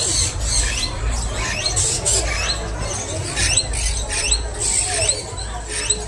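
Many small caged birds chirping together: short, high, rising squeaks overlapping several times a second, over a low steady rumble.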